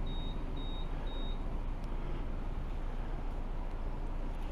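Steady low vehicle rumble with three short, high-pitched electronic beeps about half a second apart in the first second and a half.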